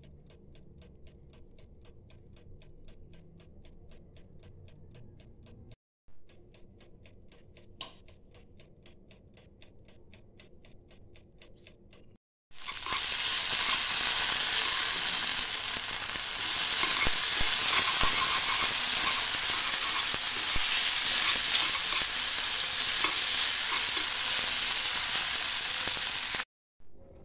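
Faint, evenly spaced ticking for the first twelve seconds or so. Then food starts sizzling loudly in a hot pan with small crackles and spits, and it cuts off suddenly near the end.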